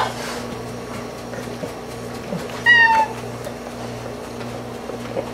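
Domestic cat meowing once, about halfway through: a short, high meow that falls slightly in pitch.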